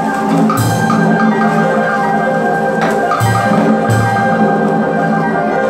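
Traditional Vietnamese music playing with the water puppet show: many sustained pitched tones, with sharp percussion strikes about half a second in and twice more just after three seconds.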